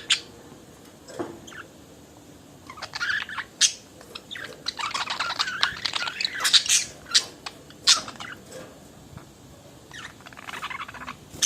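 Budgerigars warbling and chattering in spells of quick chirps, squawks and sharp clicks, with short quiet gaps; the longest spell is in the middle.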